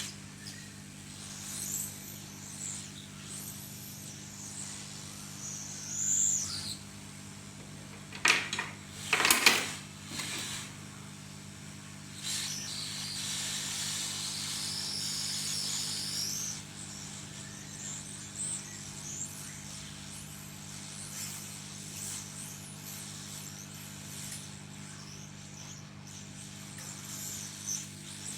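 Hot-air rework gun blowing on low with a steady low hum while it melts the solder under a phone's charging port. A few sharp knocks come around a third of the way in, and the air hiss grows louder for a few seconds after that.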